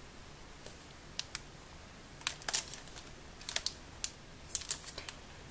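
Clear plastic wrapping on a pack of notebooks being handled and turned over: a scattered series of short, sharp crinkles and clicks.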